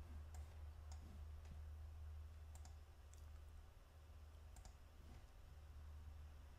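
About six faint computer mouse clicks, spaced unevenly, over a low steady hum.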